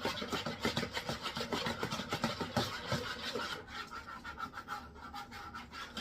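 A utensil stirring seasoning salt into yeast water in a mixing bowl, scraping the bowl in quick repeated strokes that grow softer in the second half.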